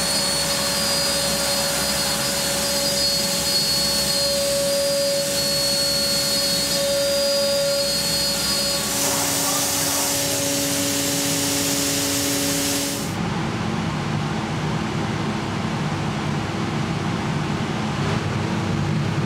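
Selexx Chief CNC router running with its dust extraction: a steady hiss with high and mid whining tones, whose pitch shifts about nine seconds in. About thirteen seconds in the high hiss cuts off suddenly, leaving a lower steady rumble.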